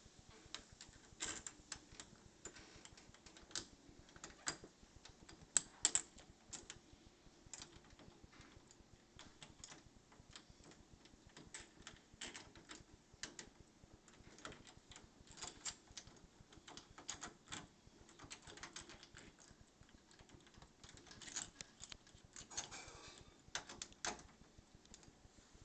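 Faint, irregular clicks and taps of metal door knob hardware being handled as the mounting screws are started by hand.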